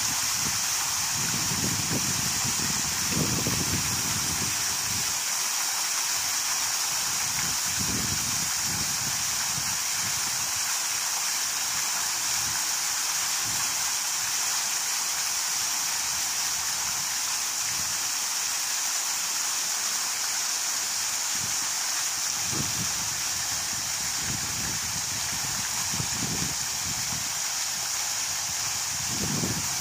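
Waterfall: water rushing and splashing in a steady, unbroken hiss. Low gusts of wind buffet the microphone in the first few seconds and again near the end.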